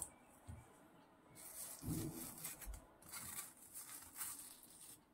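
A metal spoon scraping across firm frozen banana-coconut ice cream in a plastic tub. The scraping is faint and scratchy, comes in a few strokes, and starts about a second and a half in.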